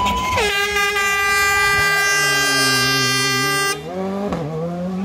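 A hand-held air horn blows one long steady note, dropping to a lower pitch just after it starts and cutting off suddenly near the four-second mark. Under it a rally car's engine comes down into a hairpin. As the horn stops, the revs rise as the car accelerates out of the bend.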